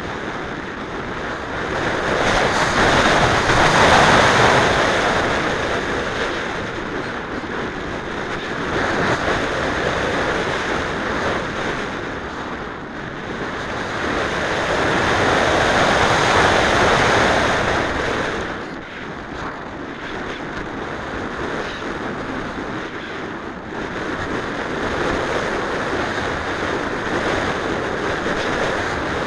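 Air rushing over the onboard camera microphone of an unpowered Mijet slope-soaring model glider in flight, a steady rushing noise that swells louder a few seconds in and again around the middle.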